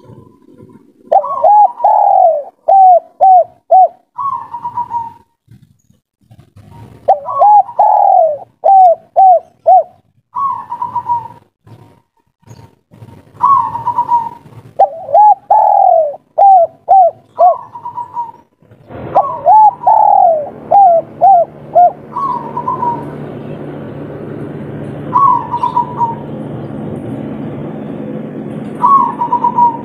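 Spotted dove cooing repeatedly: a phrase of several quick coos about every six seconds, with a single short coo between phrases; a male's call to a female. A steady low hum of background noise comes in about two-thirds of the way through.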